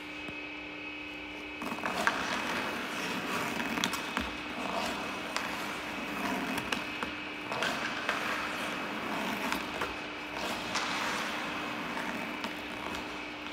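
Hockey skate blades carving and scraping the ice in surges through pivots and edge turns, starting about two seconds in, with a few sharp clicks. A steady hum runs underneath.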